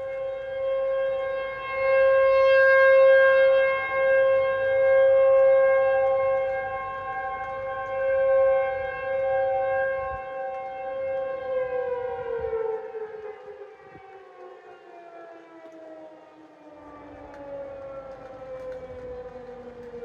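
Outdoor tornado warning siren sounding a steady tone for its monthly test, swelling and fading in loudness. A little past halfway it starts winding down, its pitch falling slowly.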